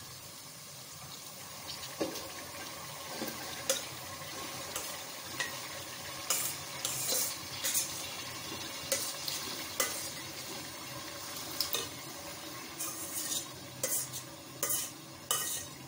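Masala sizzling in a metal pot as boiled chana dal is added, with a steel spoon stirring and scraping against the pot in irregular clinks and taps, more often in the second half.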